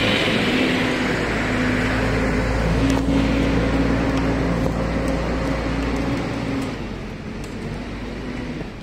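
A motor engine running steadily with a low hum, growing quieter after about six and a half seconds.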